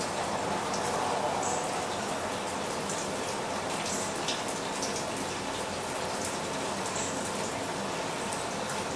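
Rain water running and splashing down a cup-style rain chain in a summer shower, with steady rain falling and scattered drips ticking.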